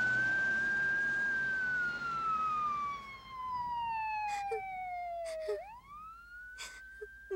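Ambulance siren wailing in long slow sweeps: one long fall in pitch, then a rise again near the end. It grows fainter as the ambulance drives away.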